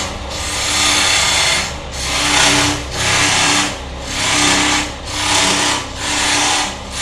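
Wood lathe running with a steady hum while a turning tool roughs down a spinning wooden hammer handle. The cutting comes in about seven strokes, roughly one a second, each a loud hiss that swells and fades.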